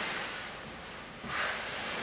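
Pleated woven fabric panel set with small metal plates, rustling and swishing as a hand twists and drags it across a surface, with a short louder swish about a second and a half in.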